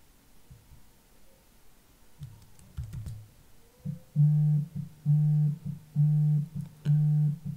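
A few faint clicks, then background music from about four seconds in: a low bass note played over and over, about once a second, each note held for about half a second.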